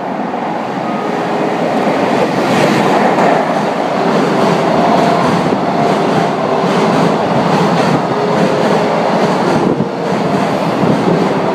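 A JR Freight container train hauled by an EF510 electric locomotive passing close by: a steady rumble and clatter of wheels on the rails, growing louder over the first two seconds and then holding. Faint short whining tones come and go over the rumble.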